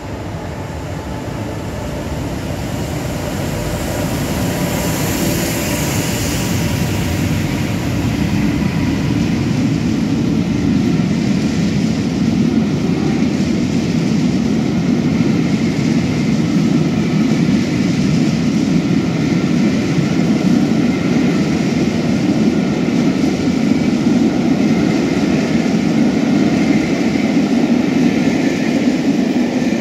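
Class 86 electric locomotive passing at the head of a rake of coaches, then the steady rumble of the coaches' wheels on the rails, growing louder over the first ten seconds and then holding.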